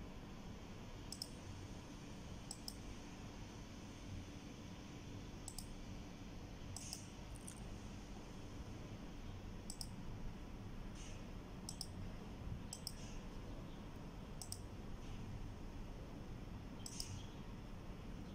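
Computer mouse button clicking: about ten single sharp clicks at uneven intervals, over a steady low room hum.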